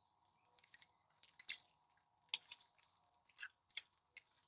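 Borax-free, glue-free slime squeezed and stretched between the hands, giving a series of small wet clicks and pops that start about a second in.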